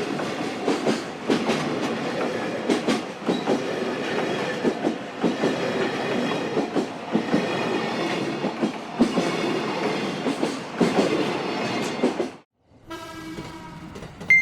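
JR Freight freight train passing a level crossing: a loud, steady rumble of wagons with wheels clacking over rail joints. The sound cuts off suddenly near the end, followed by a steady pitched tone.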